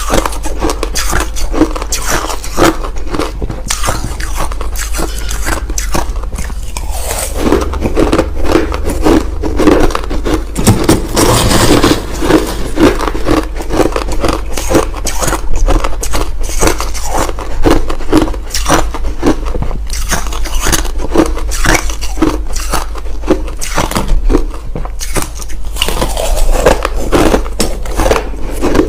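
Crushed ice being chewed close to the microphone: a rapid, continuous run of loud crunches.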